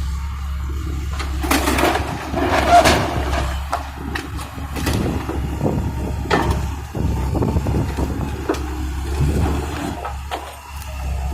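Komatsu PC130F hydraulic excavator's diesel engine running steadily, with irregular crashes and knocks of building material breaking and falling as the warehouse is torn down.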